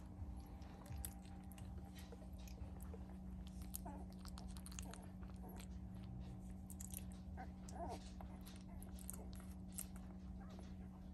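Two-week-old puppies in a sleeping pile making faint irregular mouth clicks with a few brief squeaks, over a steady low hum.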